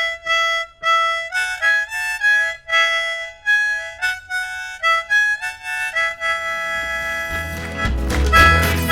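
Harmonica played in short, separate blown notes and chords, then held on one long note. Near the end, deeper accompanying instruments with a bass line come in under it.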